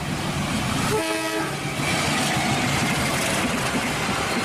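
An Indonesian KAI diesel locomotive hauling passenger coaches runs past with a loud, steady rumble of engine and wheels on the track. It sounds a short horn blast about a second in.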